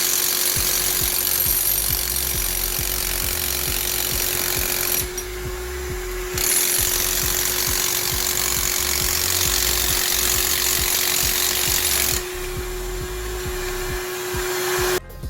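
Electric hammer drill running continuously into concrete, with a steady motor tone under the grinding noise. It eases off briefly about five seconds in and again for the last few seconds, then stops abruptly.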